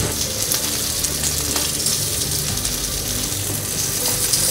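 Raw potato chunks sizzling steadily as they fry in butter in a frying pan, with a few light clicks of metal tongs turning them.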